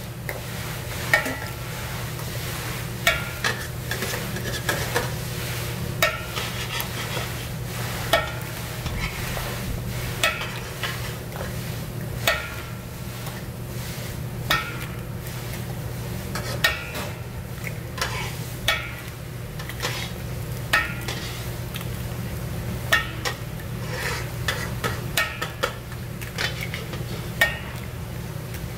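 Egg batter frying on a flat-top griddle with a steady sizzle, over a low steady hum. Sharp metallic clinks and taps come every second or two.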